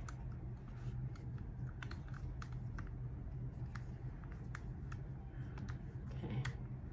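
Scattered light plastic clicks and taps from fingers handling and adjusting the phone clamp of a Feiyu Vlog Pocket 2 gimbal, over a steady low hum.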